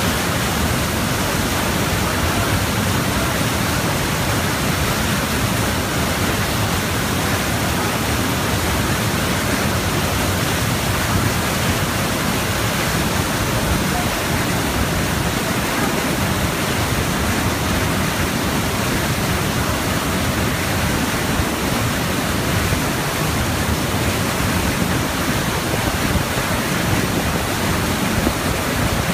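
Steady rush of water driving a small water turbine, a constant loud hiss with no change in level.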